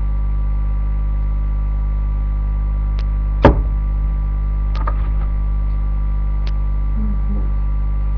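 A steady electrical mains hum with a single sharp knock about three and a half seconds in and a few faint clicks.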